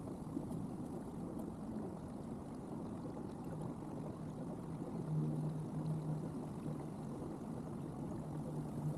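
Water noise from a kayak moving along a creek, a steady low rush, with a steady low hum joining about five seconds in.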